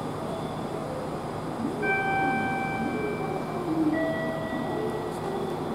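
Electronic two-note chime on a Japanese station platform, a ding-dong. A high note sounds about two seconds in and holds for about a second, then a lower note follows about four seconds in. A steady low hum runs underneath.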